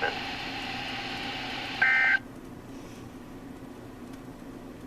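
Weather radio hiss, then about two seconds in a short, loud burst of EAS/SAME digital data tones, the end-of-message signal that closes a severe thunderstorm warning. After it the broadcast audio drops away to a quieter background.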